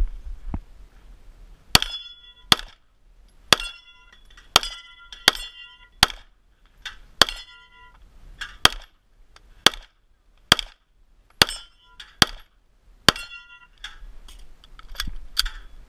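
Sig Sauer P320 pistol fired in a string of about twenty shots, spaced irregularly half a second to a second apart. Many of the shots are followed by a brief metallic ring.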